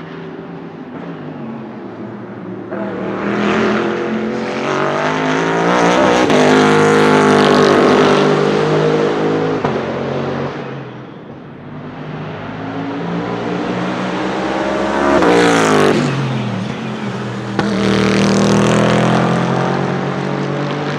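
Bentley Continental GT3 race car's 4.0-litre twin-turbo V8 at full race pace, its note climbing in pitch as it accelerates, then dropping sharply as the car goes past about two thirds of the way through. It swells loud again near the end.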